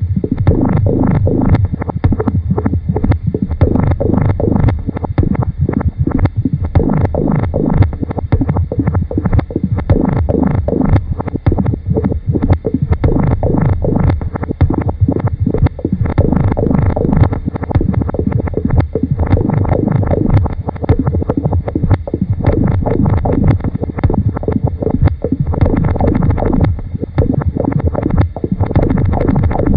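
Experimental electronic and tape noise music: a loud, dense, continuous low texture crowded with rapid sharp clicks.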